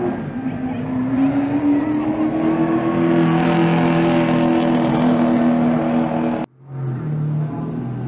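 Stock car race engine at low speed, its note slowly rising as it picks up pace. About six and a half seconds in it cuts off suddenly, and a lower, steady engine note follows as a car rolls along at low revs.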